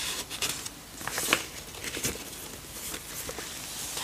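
Heavy, layered journal paper rustling and crackling as the pages are handled and turned, in several short bursts, the loudest about a second in.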